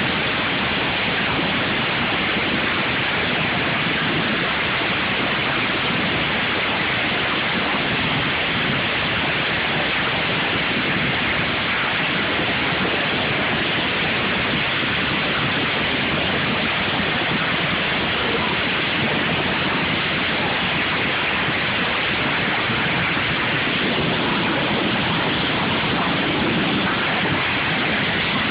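Many lawn mower engines running at once in a derby heat, blended into one steady, even noise with no single engine or impact standing out.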